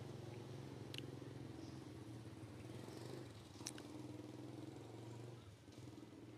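Faint, steady low drone of a distant engine, with two short, high chirps about a second in and just before the four-second mark.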